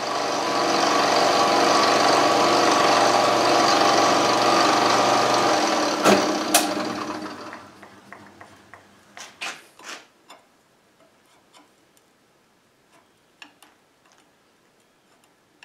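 Milling machine end mill cutting across the end of an aluminium plate: a loud, steady cut with a ringing tone. It fades out about seven to eight seconds in, after two sharp clicks, and gives way to a few scattered light taps and clicks.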